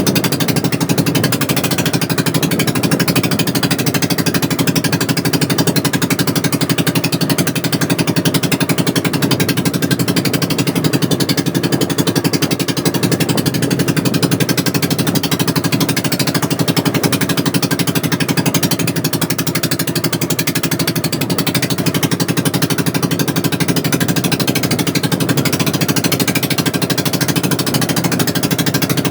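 Small engine running steadily at constant speed, with a fast, even knocking beat.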